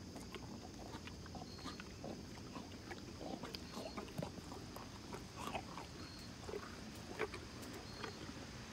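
Pony biting and chewing kernels off a corn cob, with irregular crisp crunches.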